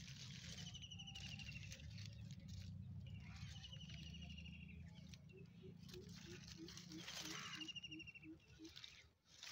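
Melon vines and leaves rustling as a hand pushes through them. A short high trill repeats every few seconds, and from about halfway a low sound pulses about three times a second.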